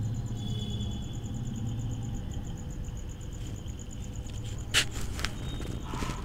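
Steady low background rumble, with one sharp click near the end and a couple of fainter clicks after it.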